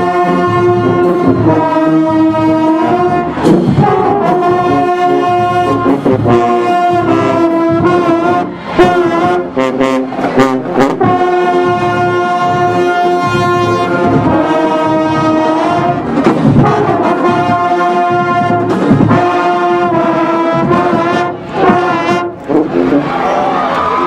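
Marching band brass section, trombones and sousaphones, playing loud held chords over a steady beat, with a few short breaks between phrases. The playing stops near the end.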